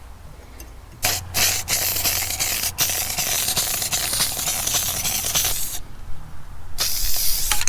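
Aerosol spray can hissing in a long spray of about five seconds with two brief breaks, then a shorter spray near the end.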